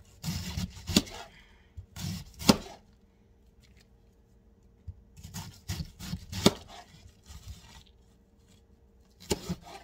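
A chef's knife slicing through half a head of green cabbage, each cut ending in a sharp tap of the blade on a plastic cutting board. The slicing comes in a few short runs separated by pauses of a second or two.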